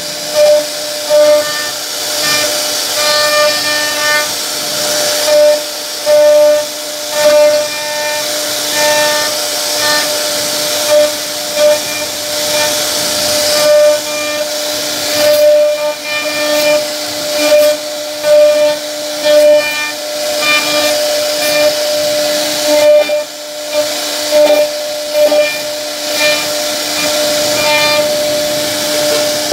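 CNC wood router carving a relief pattern into a wooden plank: the spindle gives a steady high-pitched whine over the hiss of the bit cutting the wood. The sound swells in short, louder bursts every second or two as the bit works through the cuts.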